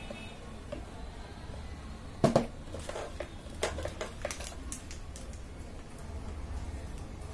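Tools and circuit-board parts being handled on a workbench. A sharp double knock comes about two seconds in, followed by a scatter of light clicks and taps, over a low steady hum.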